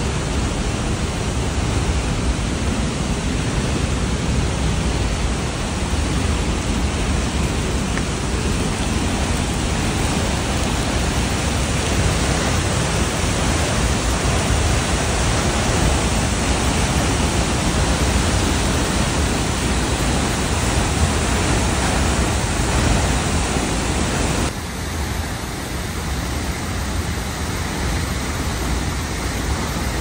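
Steady, loud rush of the Berglistüber waterfall, a tall falls pouring into its plunge pool. About 24 seconds in the rush changes abruptly to a slightly quieter, duller one.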